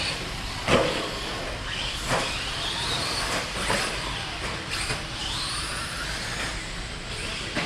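Electric 1/10-scale stadium trucks racing, their 13.5-turn brushless motors whining and rising in pitch as they accelerate. Several sharp knocks come from trucks landing or hitting, the loudest just under a second in.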